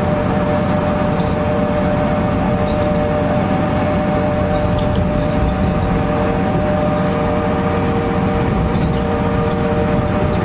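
Inside a 2000 NovaBus LFS city bus: the drivetrain and road noise make a steady low rumble, with an unchanging whine of several tones held at the same pitch throughout. A few faint rattles tick over it.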